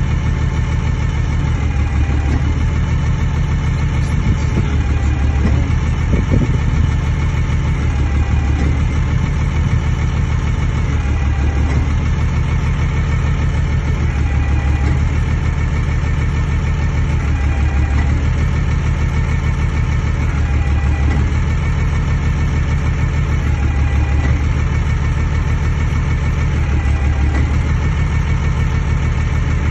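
Diesel engine of a Kalmar DCE 120-6 heavy forklift running steadily at idle, its pitch rising and falling slightly every few seconds.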